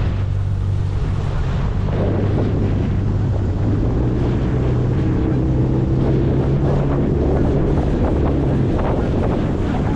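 Boat motor running steadily under heavy wind noise on the microphone, with water splashing.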